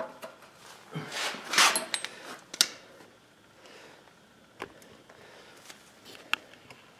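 Hydraulic hoses and metal quick-connect couplers being handled: rustling near the start, then a few separate sharp metallic clicks.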